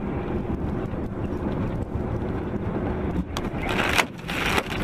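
Steady low rumble of a car's engine and road noise. Near the end a sharp click comes, followed by two short bursts of loud hissing noise with a brief gap between them.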